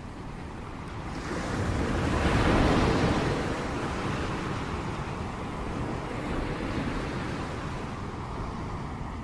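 Ocean surf breaking and washing in, swelling as a wave breaks about two to three seconds in, then a steady rush of foam.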